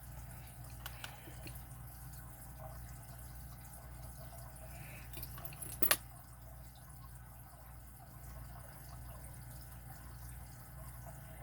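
Faint small clicks and taps of lock pins and a pinning tool while a padlock cylinder is re-pinned with standard pins, with one sharper click about six seconds in.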